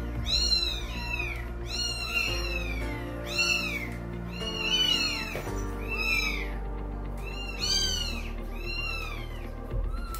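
Kittens mewing over and over: short, high-pitched cries that rise and fall in pitch, about two a second, some overlapping.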